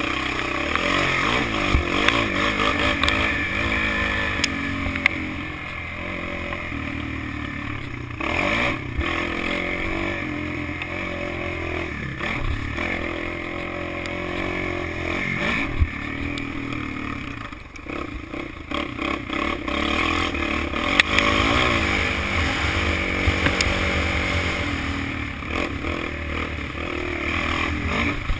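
Kawasaki KFX 400 quad's single-cylinder four-stroke engine revving up and easing off again and again while it is ridden along a dirt track, heard from onboard. Wind noise and the rattle and knocks of the quad over rough ground run under the engine.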